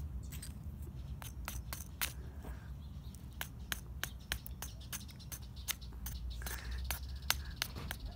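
Small hammer tapping a crumbly red dig-kit volcano block, chipping it away to reach the crystal inside. Light, sharp taps come a few each second, unevenly spaced.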